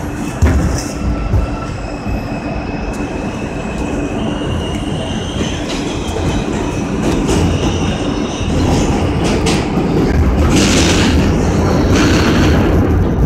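R160 subway train pulling out of a station and gathering speed into the tunnel. A thin motor whine edges up in pitch over the rumble of wheels on rail, with a few clicks near the start, and the whole sound grows steadily louder.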